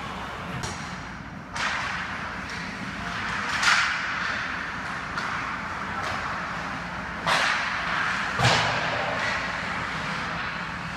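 Ice hockey play: sharp cracks of sticks and puck, four of them, about a second and a half in, near four seconds, and around seven and eight and a half seconds, over a steady scraping hiss of skates on the ice.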